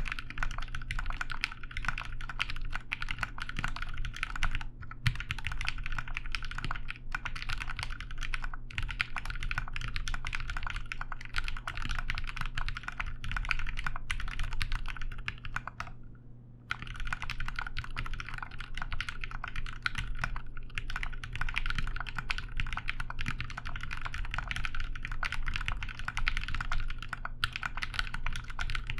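Continuous fast typing on a Sneakbox MGA Standard Alice-layout mechanical keyboard with lubed 67.5 g Gateron Black Ink linear switches, a PLA half plate, case foam and GMK keycaps. The keystrokes come in a steady stream of clacks, broken by a few short pauses and a pause of about a second a little past the middle.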